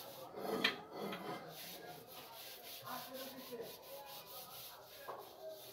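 Rustling and rubbing of hanging clothes and plastic hangers close to the phone's microphone as garments on a rack are handled, with a louder scrape about half a second in.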